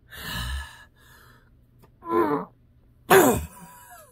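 A man's breathy gasp at the start, then two short wordless vocal sounds, about two and three seconds in.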